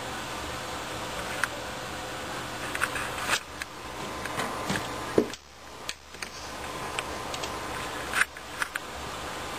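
Scattered light clicks and taps over a steady background hum and hiss. The sharpest tap comes about five seconds in, the background dips for about half a second right after it, and a few more taps come a little after eight seconds.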